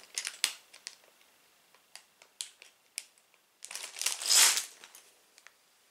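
Plastic Lego parts bag crinkling as it is handled, with scattered small crackles and a louder, longer crinkle about four seconds in.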